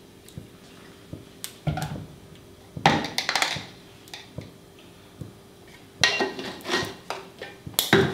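Kitchen clatter of a glass oil bottle and a small spice jar being picked up, capped and set down on the countertop: four bunches of knocks and clinks. A range hood fan hums steadily underneath.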